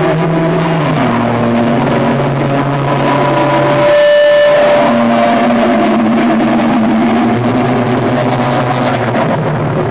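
Live heavy rock band playing an instrumental passage: loud distorted electric guitar and bass riff over drums and cymbals, the chord changing every second or so. About four seconds in, the low end drops out briefly while a single guitar note rings on.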